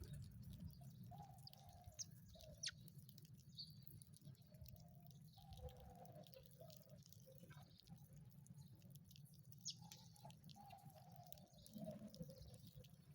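Faint, scattered sparrow chirps and short ticks over a low steady rumble.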